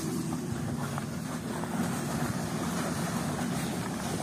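Heavy diesel engine running steadily under load as a truck climbs a dirt hill track.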